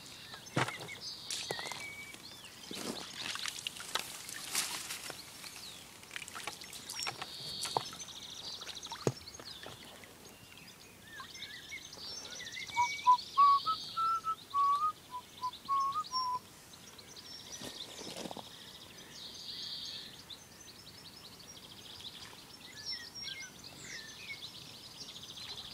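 Wild birds singing and calling, with a run of clear whistled notes about halfway through that is the loudest part, and shorter high phrases coming back every few seconds. Scattered clicks and knocks in the first ten seconds or so.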